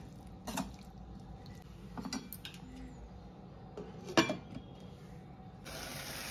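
Light clinks of a slotted steel spoon in a stainless steel pot, then a glass lid with a steel rim set down on the pot with a sharp clink about four seconds in. Near the end a steady sizzling hiss of the curry cooking under the lid begins.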